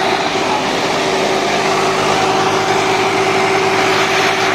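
Swaraj 744 XT tractor's diesel engine held steadily at high revs under heavy load, its rear tyre spinning on the road.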